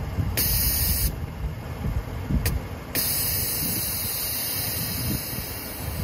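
Air suspension on a Lexus LC500 (Airforce struts with Airlift 3P management) hissing as air is let through its valves: a short hiss about half a second in, a sharp click near the middle, then a longer steady hiss from about three seconds in.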